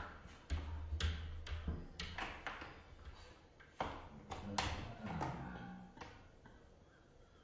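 A cat's claws and paws scrabbling against a window pane and frame as it climbs: a run of sharp taps and knocks that thin out and fade toward the end.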